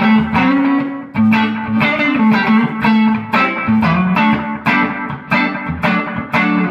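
Electric guitar with Jobe pickups, a Strat in the fourth pickup position, played clean through a Fender Twin amp with chorus and delay: a run of picked chords and single notes, each attack ringing into the next.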